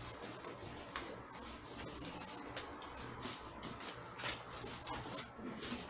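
Plastic packaging wrap rustling and crinkling in irregular bursts as it is handled.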